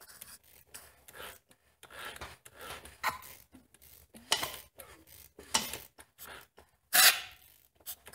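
Irregular close-up rubbing and scuffing handling noises, a hand moving against a dirty single-cylinder ATV engine, with one louder rushing burst about seven seconds in.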